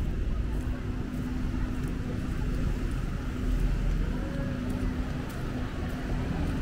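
Street traffic: motor vehicle engines running, with a steady low engine hum and a constant rumble.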